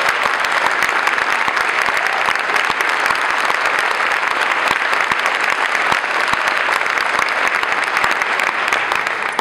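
Large audience applauding: dense, steady clapping from many people that begins to die away at the very end.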